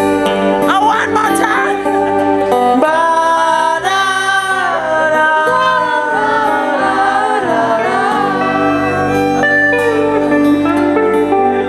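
Live band music with singing over guitar, held at a steady level.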